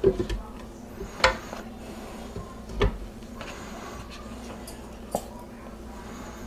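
Boiled chicken breasts dropped one by one into a glass blender jar, landing with four separate knocks spread over several seconds, the first two the sharpest.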